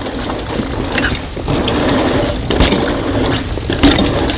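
Mountain bike rolling fast along a dirt trail, heard from a camera on the rider: a steady rush of tyre and wind noise with the bike rattling and sharp knocks over bumps, the loudest about four seconds in.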